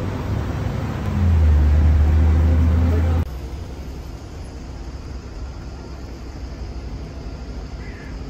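Street traffic with a loud, steady low engine hum from a vehicle close by, which cuts off abruptly about three seconds in, leaving a quieter traffic rumble.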